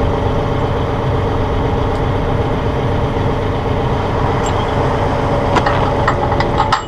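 Massey Ferguson 1742 compact tractor's diesel engine idling steadily. Several short metallic clicks late on, from the backhoe's steel latch pins being handled and stowed.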